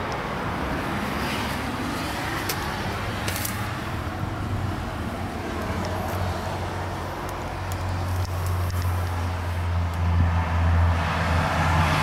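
A motor vehicle's engine running steadily with a low drone that grows louder over the second half, with a few light clicks over it.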